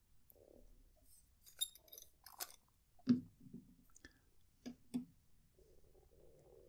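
Fountain pen caps being taken off and the pens handled and laid on a cork mat: a scattering of small clicks and taps, the loudest about three seconds in.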